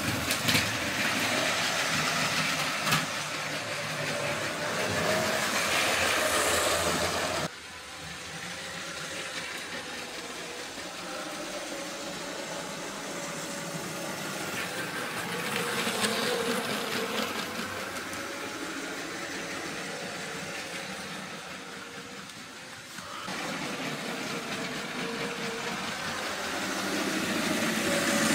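Motorised LEGO Power Functions trains running on plastic track: a steady electric motor whine with wheels rolling. It drops to a quieter level at a sudden change about seven seconds in and gets louder again near the end.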